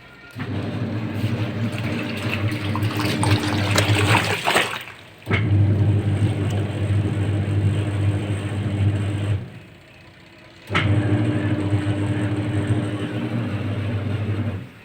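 Washing machine motor running its wash cycle, churning clothes in water with a steady hum: three runs of about four seconds, each stopping briefly before the drum turns again.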